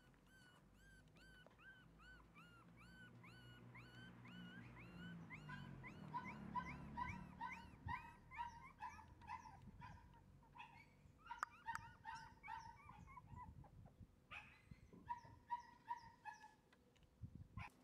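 Shiba Inu puppy whining in a rapid string of short, high calls, each rising and falling, about three a second, with a few brief pauses later on.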